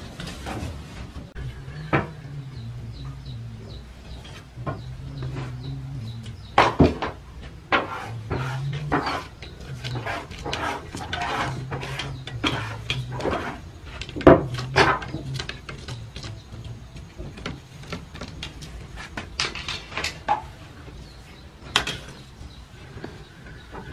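Long metal poker knocking, scraping and clattering against the metal and brick of a wood-fired oven's firebox as the fire is stoked, in irregular knocks with a few louder clanks.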